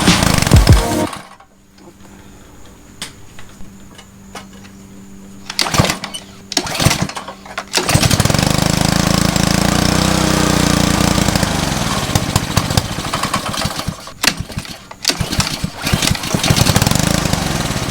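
Gas pressure washer running loud. It drops away about a second in, leaving a few seconds of quiet faint hum and scattered knocks. About eight seconds in the engine and spray come back on and run steadily loud.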